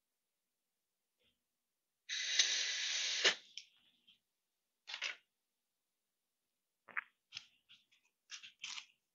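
An unfired clay whistle blown in a test: a breathy rush of air about a second long with only a faint tone. It is followed by several shorter airy puffs and a click or two. The whistle's airway is still too restricted to sound cleanly.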